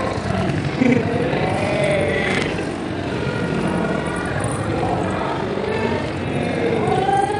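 Busy street-market ambience: many shoppers' voices chattering over each other, mixed with the running of passing motor scooters and cars. A short louder bump comes about a second in.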